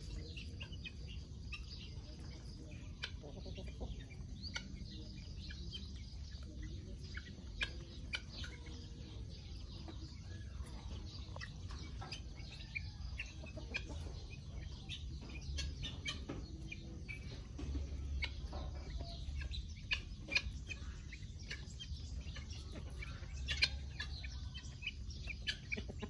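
Chickens clucking, with short calls scattered throughout over a steady low rumble.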